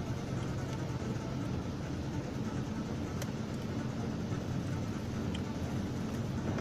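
Steady low drone of a car driving, with an even hum and road noise.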